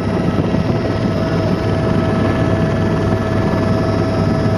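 Helicopter cabin noise: a steady drone of engine and rotor, with a constant high tone over it.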